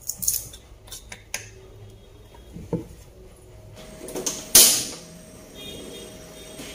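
A knife chopping on a wooden cutting board in the first second or so, then a loud sharp burst about four and a half seconds in as a gas stove knob is turned and the burner lit under the frying pan, followed by a faint steady noise.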